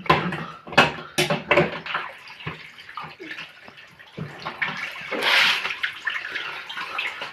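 A few sharp knocks and clatters, then water pouring and splashing for a second or two.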